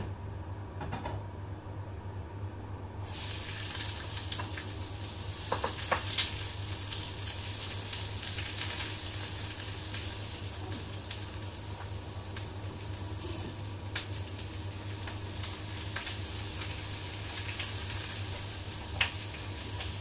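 Food frying in oil in a pan, a steady sizzle that starts suddenly about three seconds in, with a spatula stirring and now and then clicking against the pan.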